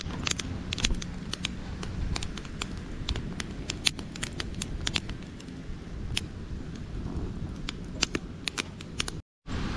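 Open wood fire crackling under a cooking pot: irregular sharp snaps and pops over a low steady rumble. The sound drops out for a moment near the end.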